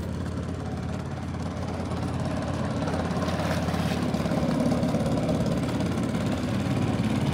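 A motor engine idling steadily, growing a little louder over the last few seconds.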